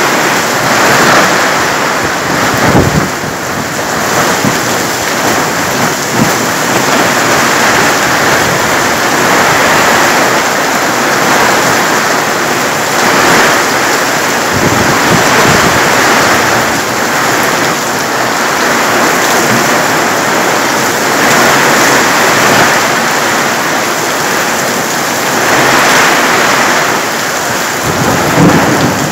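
Heavy downpour in a thunderstorm: a loud, steady rush of rain that swells and eases every few seconds.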